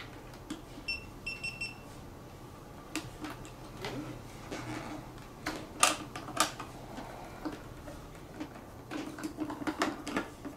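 GoPro Hero2 camera giving a quick run of short high beeps, then sharp plastic clicks and snaps as the camera and its case are handled and taken off the helmet mount.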